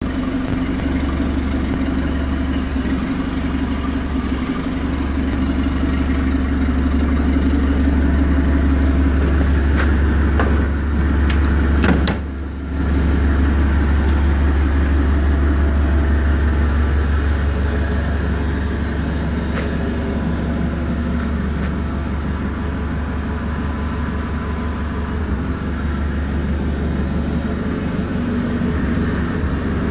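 Clark forklift's engine idling steadily, a constant low hum, with a brief drop about twelve seconds in.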